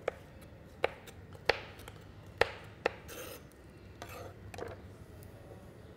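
Kitchen knife chopping diced bell peppers on a cutting board: four sharp, irregularly spaced knocks of the blade on the board in the first three seconds. These are followed by softer scraping sounds and a few faint taps as the pieces are worked with the blade.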